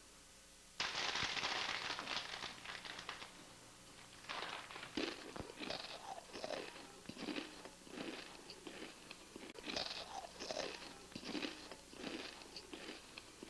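Mouth noises right at the microphone, crunching and chewing-like. They start abruptly about a second in with a short loud rush, then come as irregular short bursts.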